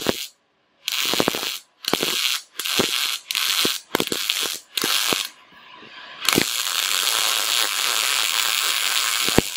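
PEJO mini MIG welder's arc crackling as it welds steel with CO2 shielding gas: six short bursts as the trigger is pulled and released, then a steady run of about three seconds that cuts off near the end.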